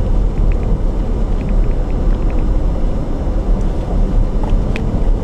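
A car in motion: a steady low rumble of road and engine noise, with a few faint light clicks.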